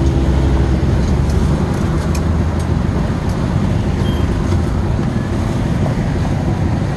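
Steady low rumble of street traffic, with a few faint clicks in the first half.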